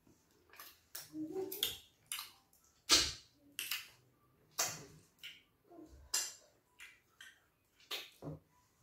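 Close-up eating sounds of fufu with slimy ogbono soup eaten by hand: wet mouth smacks and finger-licking in short, irregular bursts, the loudest about three seconds in.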